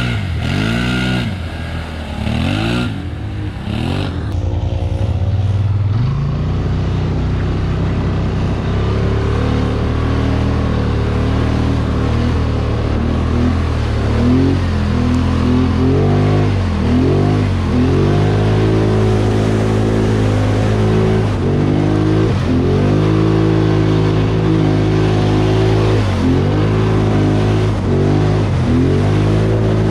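Polaris Sportsman Highlifter ATV engine running under load while riding, its pitch rising and falling as the throttle is opened and eased off several times.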